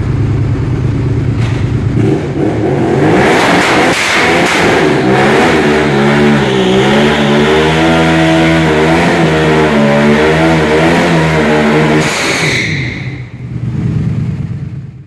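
Motorcycle engine revving up from idle and held high for about ten seconds while the rear tyre spins on the concrete floor in a burnout, a loud hissing tyre screech over the engine. About twelve seconds in the revs drop, then rise once more briefly before cutting off.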